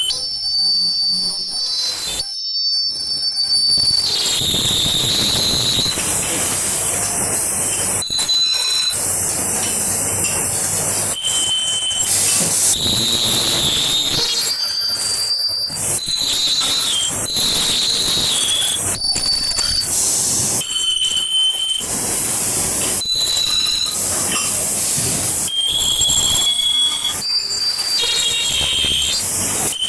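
Ultrasonic plastic welding machine screeching through repeated weld cycles: a shrill, piercing squeal over a hiss, in bursts of one to two seconds, its pitch shifting from burst to burst.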